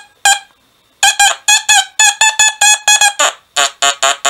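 XP Deus metal detector sounding its target tones as a piece of iron is swept over the coil: a quick run of short mid-pitched beeps, then from about three seconds in a run of lower, buzzier tones.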